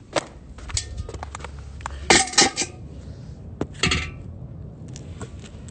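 Phone handling noise: a run of sharp clicks and knocks as the phone is moved and set down at court level. The loudest is a cluster of knocks about two seconds in, with another near four seconds.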